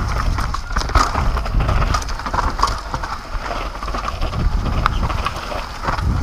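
Downhill mountain bike clattering and rattling over a rough dirt trail at speed, with tyre noise on the dirt and a steady low rumble of wind on the microphone.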